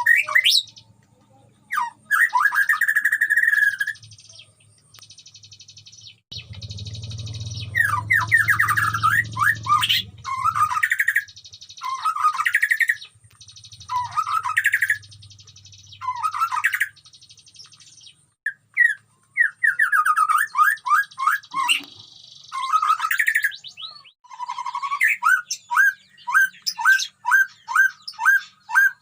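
White-rumped shama (murai batu) singing: varied bursts of loud whistled notes, ending in a fast string of repeated notes.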